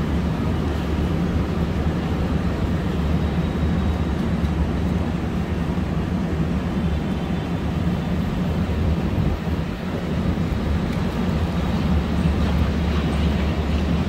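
Steady street ambience of a wet city square: a constant low traffic rumble with a general wash of city noise and no distinct single event.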